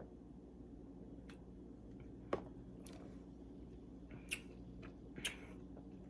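A person sipping and swallowing soda, heard as a few faint, sharp mouth clicks and smacks, the sharpest about two and a half seconds in.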